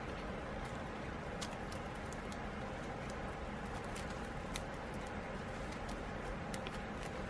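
Guinea pig nibbling at a woven timothy-hay mat, heard as scattered faint dry clicks and crackles at irregular intervals over a steady room hum.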